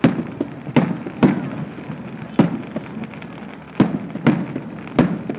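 Aerial firework shells bursting overhead: about seven sharp bangs at irregular intervals, each trailing off briefly.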